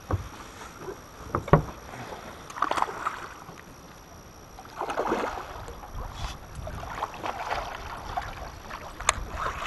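Water splashing as a landing net is worked through the water beside an aluminium dinghy after a hooked trout. A few sharp knocks, likely on the aluminium hull, come at the start, about a second and a half in, and near the end.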